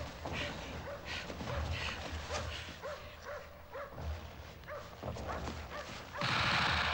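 A group of soldiers running across snow: a run of short, repeated sounds about two a second, with low thuds beneath. About six seconds in, a sudden loud burst of noise takes over and holds.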